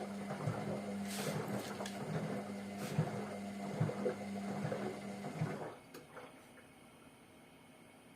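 Hotpoint Ariston washing machine mid-wash: the motor hums steadily as the drum turns, with irregular soft thuds as the laundry tumbles. The drum stops about five and a half seconds in.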